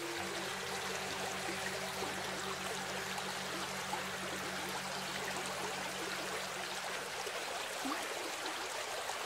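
Clear, shallow river running over a stony bed: a steady rush and babble of water. Low, sustained selonding gong tones linger underneath and die away about seven seconds in.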